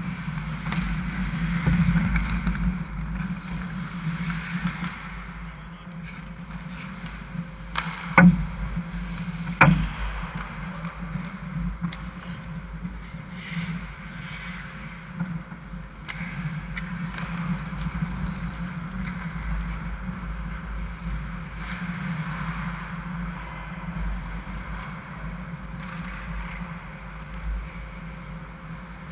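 Ice hockey play close to the net: skates scraping on the ice and sticks clattering over a steady low hum. About a quarter of the way in come two sharp knocks, about a second and a half apart, the loudest sounds.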